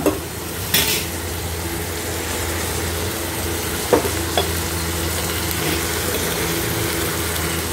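Chopped onions, tomatoes and green chillies sizzling steadily in hot oil in a frying pan, with a sharp click about a second in and two lighter ticks near the middle.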